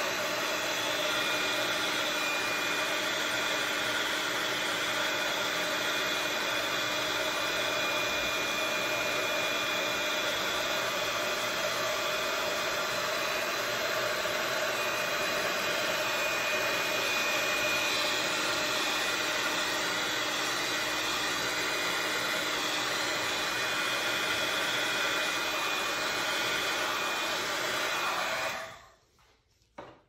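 Heat gun running steadily, a constant rush of blown air with a faint steady whine, switched off near the end.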